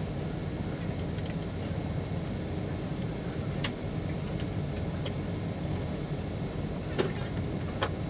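Steady low hum of workshop background noise, with a few sharp metallic clicks from small hardware being handled: screws, a nut and an Allen wrench against an aluminium extrusion frame.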